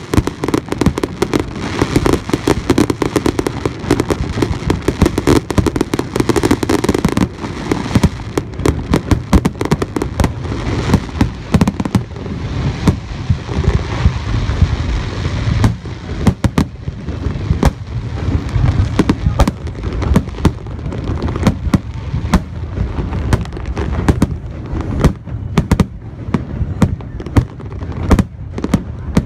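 Fireworks finale barrage: aerial shells bursting in rapid, overlapping booms. It is a dense crackling roar for about the first seven seconds, then a fast run of separate bangs.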